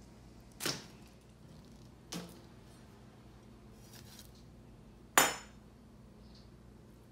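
Metal kitchen utensils knocking against a stone molcajete and stone countertop: three sharp clinks, the first under a second in, a softer one about two seconds in, and the loudest, with a brief metallic ring, about five seconds in.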